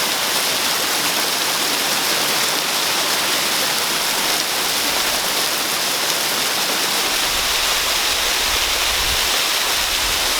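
Mountain waterfall close by, a loud, steady rush of falling water. A low rumble joins from about seven seconds in.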